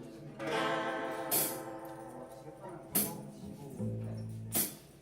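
Acoustic guitar strumming chords live, with a sharp accented strum about every second and a half.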